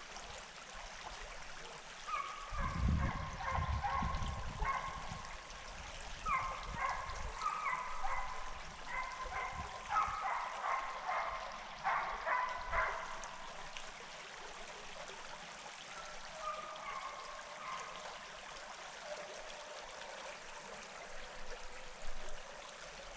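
Creek water running steadily, with hunting hounds baying in the distance in short, repeated, pitched calls from about two seconds in until about thirteen seconds, then a few more calls later. A low rumble comes in about three seconds in.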